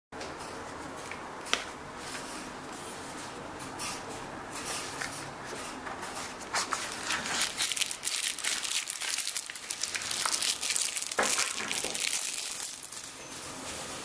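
Packaging being handled and opened: a cardboard box and the plastic wrap around a tactical pen. A single sharp click comes about a second and a half in. From about six and a half seconds to near the end the plastic wrap crinkles and rustles densely.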